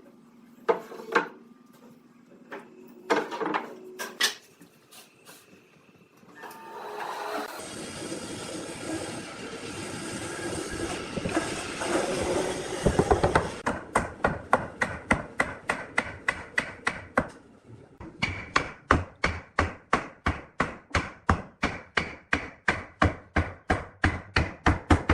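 Woodworking sounds: a few scattered knocks, then several seconds of steady tool noise. Two long runs of regular hammer blows on wood follow, about three a second.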